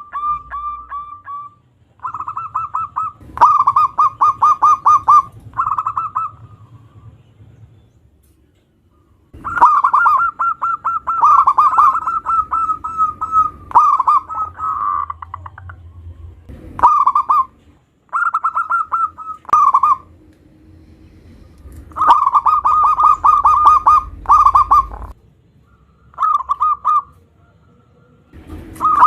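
Zebra dove (perkutut) cooing in phrases of rapid, evenly pulsed notes around one pitch, each phrase a second or a few seconds long, repeated again and again with short pauses between. A few sharp clicks come in between the phrases.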